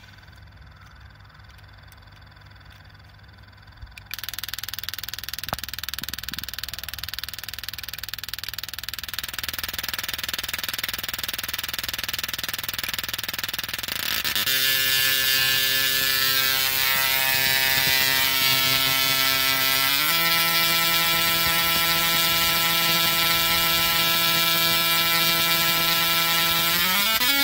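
Tabletop Tesla coil firing its sparks at a plastic toy car. A hiss starts about four seconds in; then a loud electric buzz with a definite pitch sets in, which steps up twice as the arcs grow, the second time near the end.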